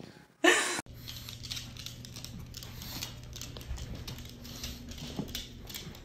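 A short loud burst about half a second in, then a dog's claws clicking lightly and irregularly on a hardwood floor as it walks, over a steady low hum.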